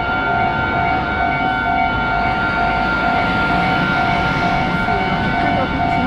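Japanese railway level-crossing warning bell ringing, a repeating electronic ding about twice a second over steady higher tones. A steady low rumble runs underneath.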